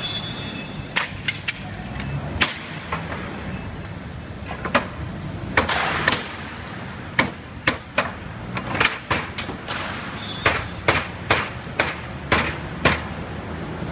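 Hammer striking a wooden pallet on a repair table: a series of sharp knocks, a few spaced ones at first, then a quick run of blows in the second half. A steady low hum runs underneath.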